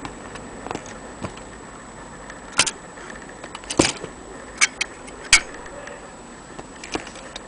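Vintage Corona portable typewriter clacking: a handful of sharp mechanical strikes and clicks at irregular spacing, the loudest about two and a half, four and five and a half seconds in.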